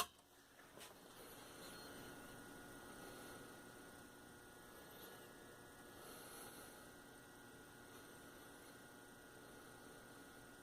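A single sharp click at the start, then near silence with a faint, steady electrical hum.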